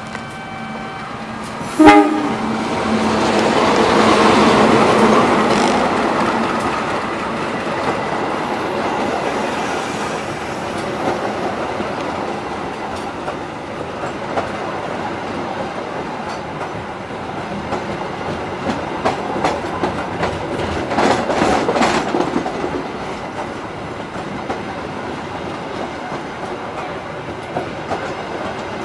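CC201 diesel-electric locomotive passing close by with a passenger train, a brief horn near the start and a sharp knock about two seconds in. Its engine is loudest a few seconds in; then the coaches roll past with a steady clickety-clack of wheels over rail joints, the clacks bunching together about three-quarters of the way through.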